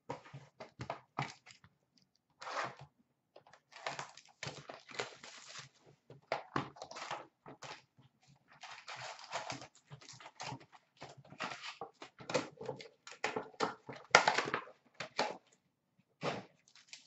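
Cardboard hobby box of hockey card packs being opened and the wrapped packs handled: irregular bursts of rustling, crinkling and tearing, with a few knocks.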